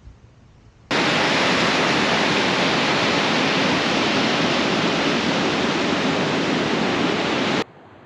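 Loud, even rushing of water, starting suddenly about a second in and cutting off suddenly near the end.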